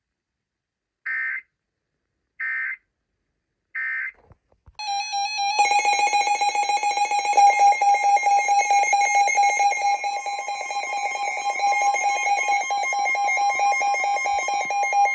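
Emergency Alert System broadcast signals: three short digital data squawks (SAME end-of-message bursts), then the EAS attention tone, a loud steady alarm tone that runs for about ten seconds and cuts off abruptly.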